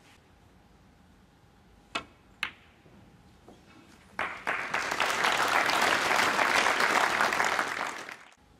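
Two sharp snooker-ball clicks about half a second apart: the cue striking the cue ball, then the cue ball hitting the black for a pot. About two seconds later the audience applauds for about four seconds, then the applause dies away.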